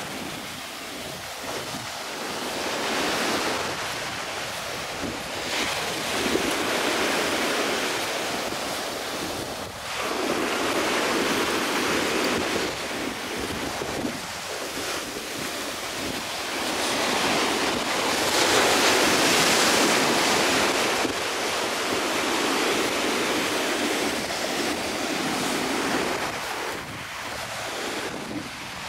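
Ocean surf breaking and washing onto a beach, with wind. The surf swells and eases every few seconds and is loudest about two thirds of the way through.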